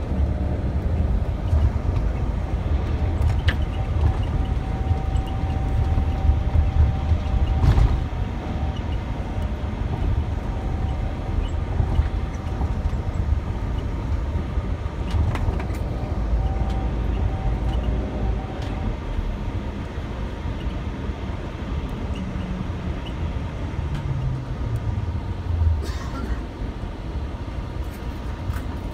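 Inside a moving coach bus: steady low rumble of the engine and road noise, with a faint whine that comes and goes and a few brief knocks from bumps. The engine note falls near the end as the bus slows.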